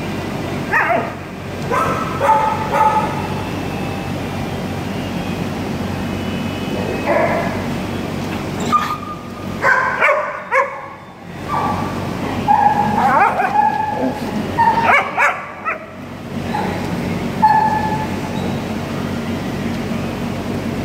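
Dogs play-fighting, giving short high-pitched yelps and whines in bunches, over a steady background hum.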